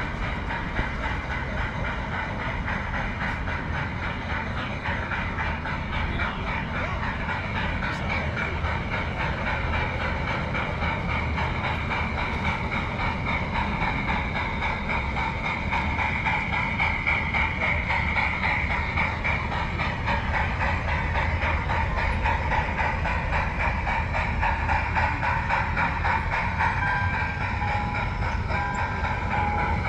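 G scale model train running on garden railroad track: a steady stream of clicking from the wheels over the rails with a hiss, growing a little louder as it nears. Near the end a train whistle sounds in a few short, steady blasts.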